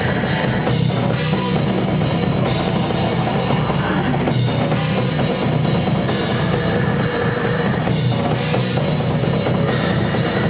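Loud rock-style music driven by a drum kit, with bass drum and cymbals, running steadily without a break.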